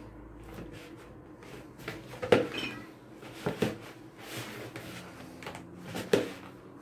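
Hands kneading a very stiff dough in a plastic bowl: soft pressing and squeezing, with a few irregular dull knocks of the bowl on the table, the loudest about two seconds in.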